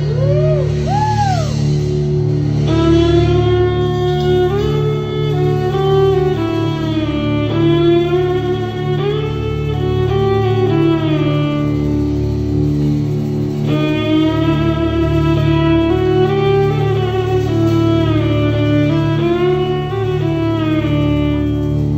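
Electric violin playing a bowed melody with slides and vibrato over a band's steady low bass and keyboard backing, heard live in the hall. A few swooping glides come first, the melody enters about three seconds in, and it pauses briefly a little past halfway before the next phrase.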